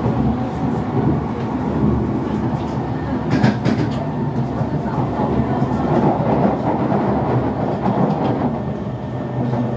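Inside a C151 MRT train running at speed: a steady rumble of wheels on rail, with a short cluster of clicks about three and a half seconds in.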